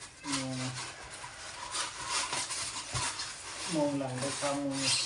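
Bubble wrap crinkling and rustling as it is pulled out of a cardboard box packed with styrofoam. A man's voice makes a short sound about half a second in and again about four seconds in.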